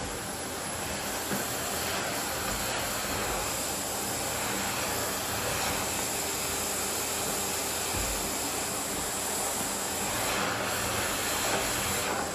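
Miele vacuum cleaner running steadily: an even hiss of air through the nozzle over a low motor hum, with a small knock about a second in.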